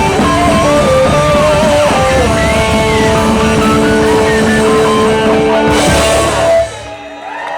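Rock band playing, with guitar lines over bass and drums; the song ends about six and a half seconds in on a final cymbal crash and drops away sharply.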